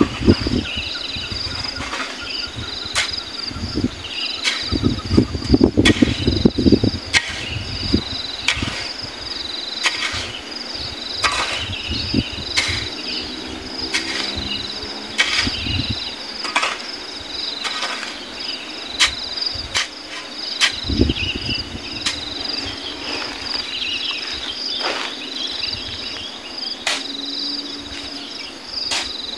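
Steel shovel scooping and scraping into a pile of river sand and tossing it into a dump truck bed, in repeated strokes about every second or two. Insects chirr steadily and high-pitched underneath.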